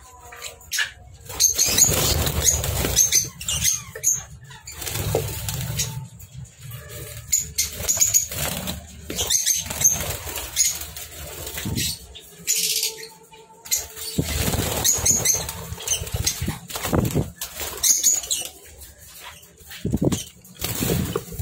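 Small caged parrots flapping their wings in repeated short flurries, with brief high chirps among them.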